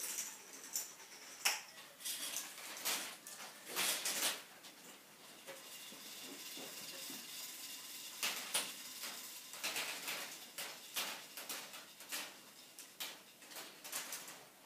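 A K'Nex-built fruit machine running a spin, its plastic mechanism clattering. A burst of clicks and knocks comes as the handle is worked, then a steadier whirring while the reels spin, then a long run of sharp clicks as the reels come to a stop.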